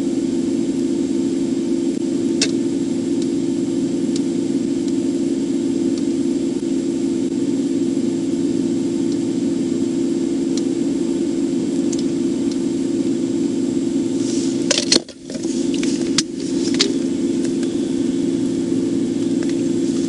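Steady low hum of an idling patrol car heard from inside its cabin, with a few scattered light clicks. About 15 seconds in there is a short burst of clicks and handling noise, and the sound briefly drops.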